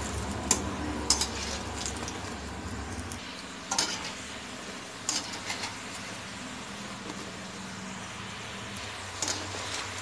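Gram-flour (besan) pieces deep-frying in hot oil in a kadai, a steady sizzle, with a wire spider skimmer stirring them and clinking and scraping against the pan a few times.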